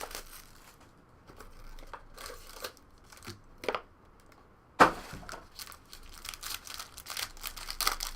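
Plastic wrapping on a box of trading cards being torn open and crinkled, with a sharp snap about five seconds in and busy crinkling near the end.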